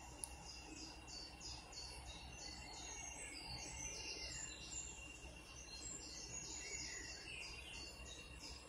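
Two high, rapid chirping trills a couple of seconds apart, over the faint low rumble of a slow-moving freight train heard from one of its wagons, with a thin steady high tone.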